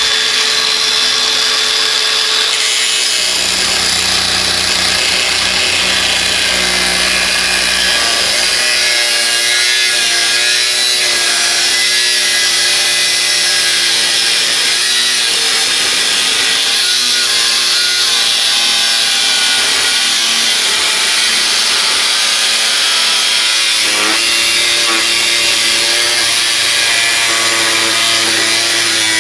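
Cordless angle grinder (DeWalt DCG405F) with a 1 mm thin metal-cutting disc cutting through 3 mm galvanised steel plate. It makes a loud continuous grinding screech over the motor whine, and the motor's pitch wavers as the load on the disc changes.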